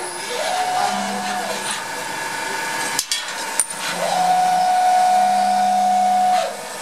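CNC milling-turning machine making Phillips screwdriver bits, running with a steady hum. Twice its motor whine glides up, holds and winds down: briefly about half a second in, then longer from about four seconds until near the end. A couple of sharp clicks come around three seconds in.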